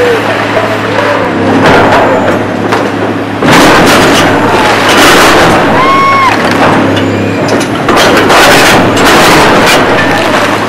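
Heavy demolition machinery at work: a diesel engine running steadily under loud crashing and grinding of broken concrete and debris, with short squeals now and then.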